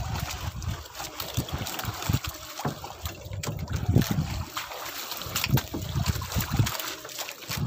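Water sloshing and trickling around a small boat, with wind buffeting the microphone in uneven low gusts and scattered sharp knocks and splashes.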